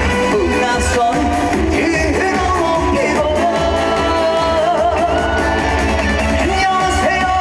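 A trot song performed live: a male singer's voice over amplified band accompaniment.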